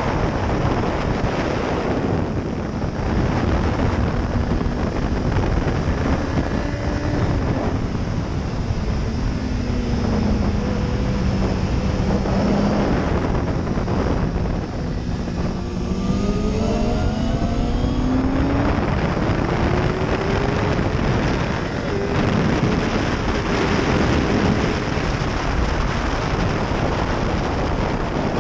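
BMW S1000RR inline-four engine at track speed, largely buried under heavy wind noise on the microphone. Its pitch falls slowly through a corner about halfway through, then climbs again in several rising sweeps as the bike accelerates.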